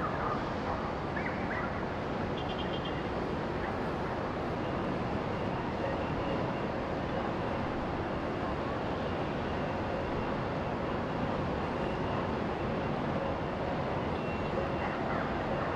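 Steady, even outdoor background roar, with a few faint chirps about a second in and again near the end.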